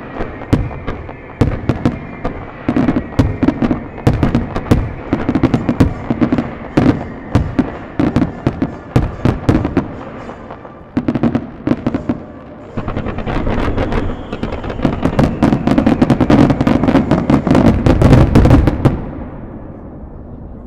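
Fireworks display: aerial shells bursting one after another in sharp bangs, thickening from about 13 seconds into a rapid, dense barrage that stops abruptly at about 19 seconds and leaves a fading rumble.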